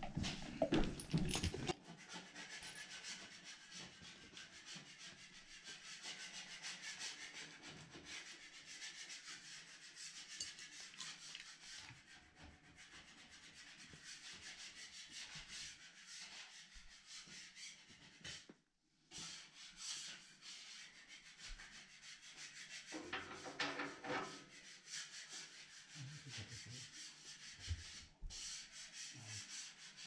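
Hands handling plumbing tools and parts on a cloth: a clatter in the first two seconds as things are set down, then faint rustling and rubbing, with another short burst of handling noise a little before the end.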